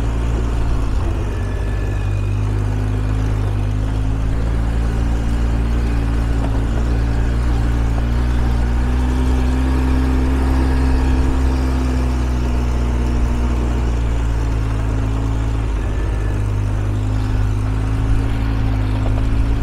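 ATV engine running steadily under way, its pitch rising slightly around the middle and easing back down.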